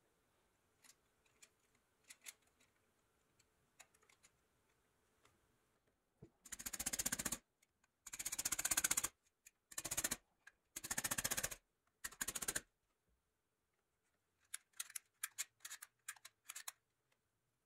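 Clockwork spring mechanism of a 1934 Kingsbury wind-up toy car clicking rapidly and metallically in five bursts of about a second each, followed by a run of separate single clicks near the end. A few faint ticks come before the bursts.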